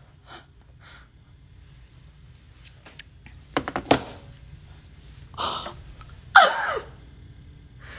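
A woman gasping and laughing under her breath, with a few sharp knocks midway, then a louder gasping squeal that falls in pitch about two-thirds of the way through.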